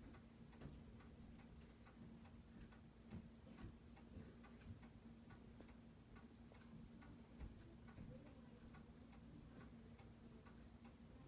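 Seiko 6309 automatic movement ticking on a timegrapher at 21,600 beats per hour, six quick, even ticks a second, faint over a low steady hum. The freshly serviced watch is running about a minute a day fast and still needs regulating.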